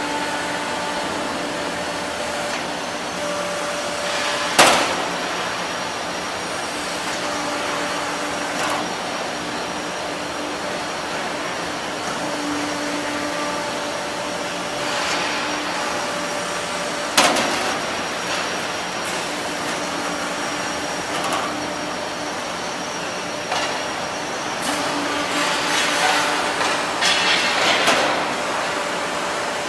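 HVAC duct production line running: a steady machine hum with two sharp metallic bangs about twelve seconds apart and a stretch of rattling, clattering metalwork near the end.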